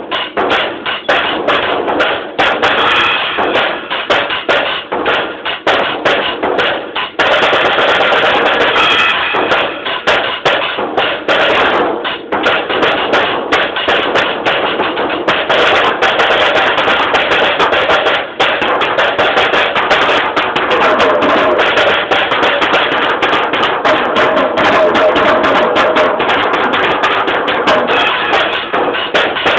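Drum kit played in a fast solo, recorded on a mobile phone so it sounds thin and dull. Separate rapid strokes at first, then from about seven seconds in a dense, continuous wash of hits.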